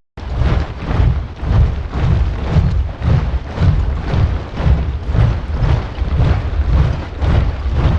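A large body of soldiers marching in step, their boots thudding together in a heavy, even rhythm of about two steps a second. The sound drops out for a moment right at the start.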